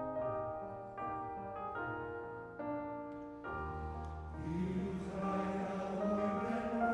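Piano playing slow, sustained chords, then a male voice choir comes in about four seconds in, singing in Welsh over the piano and growing louder.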